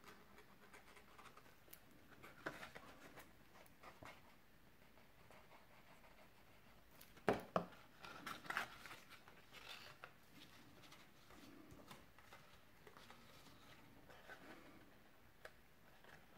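Faint handling of a folded cardstock box on a tabletop: light rustling and small taps, with two sharper clicks a little past seven seconds in.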